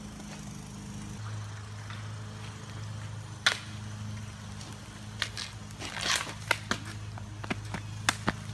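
Street hockey stick and ball knocking on asphalt: one sharp knock about three and a half seconds in, then a scattered run of quick taps and clacks over the last few seconds, over a steady low hum.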